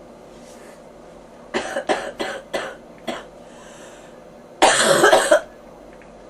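A person with bronchitis coughing: a quick run of five short coughs, then after a pause about four seconds in a longer, louder, harsher cough.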